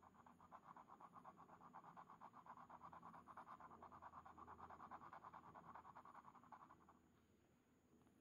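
Bungubox x Synchronicity glass pen nib scratching quickly back and forth on a paper swatch card, shading in with ink in a fast, even rhythm. The scratching stops about seven seconds in.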